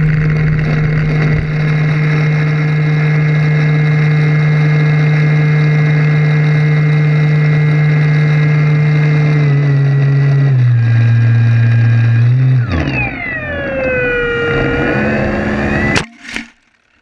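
SIG Kadet Senior Sport model airplane's engine, heard close from a camera on board, running steadily at high power. Its pitch drops about ten seconds in, then sweeps down and back up before a loud crash impact cuts it off near the end: the plane going down after radio control was lost.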